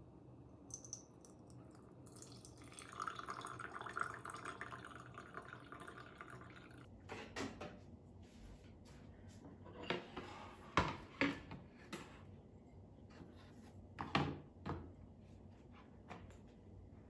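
Coffee poured from a French press into a glass cup, a steady trickle that stops about seven seconds in. After it come several light knocks and clinks of tableware being set down and handled.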